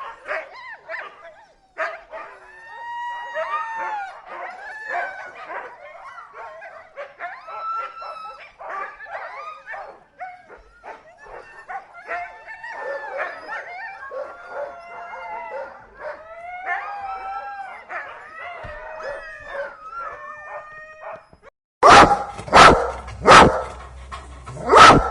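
Dog whining and howling, with pitch sliding up and down in long arching calls. Near the end it gives way abruptly to a run of loud, sharp barks.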